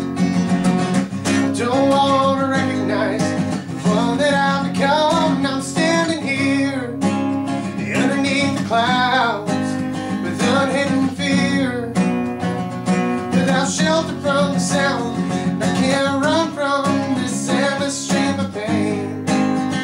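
Acoustic guitar strummed and picked, with a man singing over it in long, drawn-out melodic lines.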